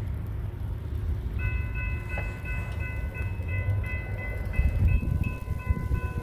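Railroad grade-crossing warning bell starting up about a second and a half in and ringing in rapid, even dings, the sign that the crossing signal has been activated by an approaching train and the gates are coming down. A low rumble runs underneath.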